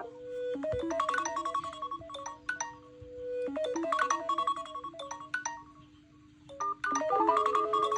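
Smartphone ringtone playing: a short melodic phrase of quick notes over a held tone, repeating about every three seconds.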